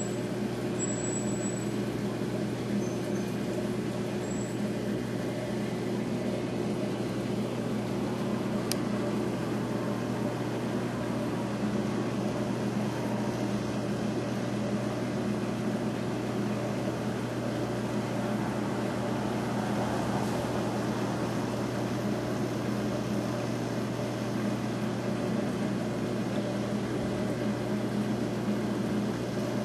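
Aquarium pumps running with a steady, unchanging low hum, with one faint click about nine seconds in.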